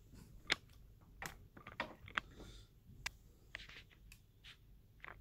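Light handling of the video camera: a string of about nine irregular sharp clicks and taps as its controls are pressed, in an attempt to pause the recording.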